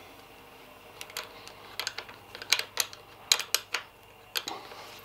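Open-ended spanner clicking and tapping on the lock nut under the brake lever's pivot bolt as it is tightened: a run of sharp, irregular metal clicks.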